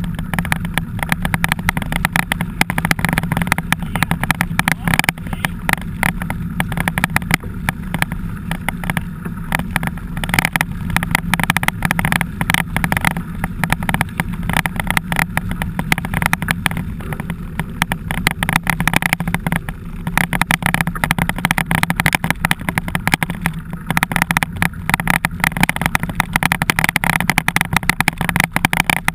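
Mountain bike ridden over rough dirt, heard through a handlebar-mounted GoPro: continuous rattling and knocking of the bike and camera mount over a steady low hum.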